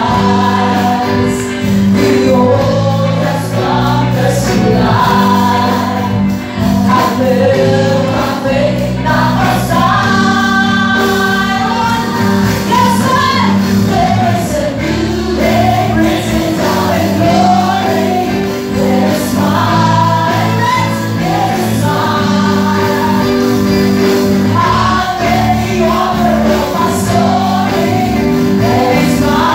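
Group of women singing a gospel praise song into microphones, amplified, backed by a live band with drums and electric guitar.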